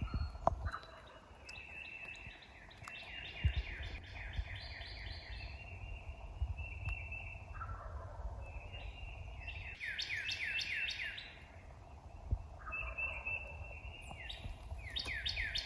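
Wild turkeys calling: several rapid strings of short falling notes, repeated every few seconds, over a low rumble of wind.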